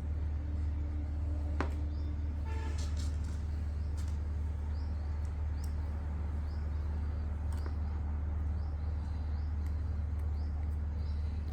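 Steady low mechanical hum with no change in pitch, a few faint clicks and small high chirps over it.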